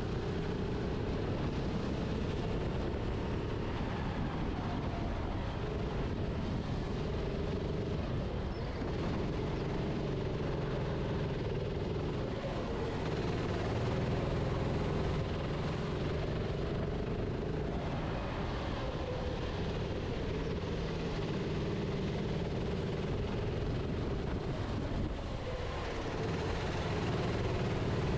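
Racing kart engine running hard, its pitch rising and falling as the kart accelerates and slows, over a steady rushing noise.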